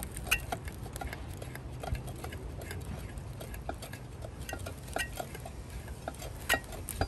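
Light, irregular metallic clicks and scrapes from the stiff, freshly oiled shaft of an old Robbins & Meyers fan motor being worked round by hand. The dry bearings are only just starting to loosen.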